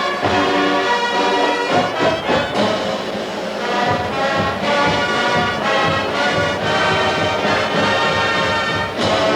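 College marching band brass section playing a full, loud passage, with trombones and trumpets holding and moving through chords over drums.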